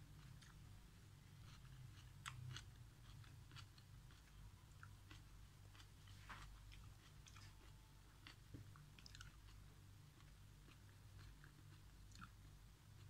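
Quiet chewing of instant noodles and vegetables, with scattered soft clicks from a metal spoon in an aluminium wok, over a low steady hum.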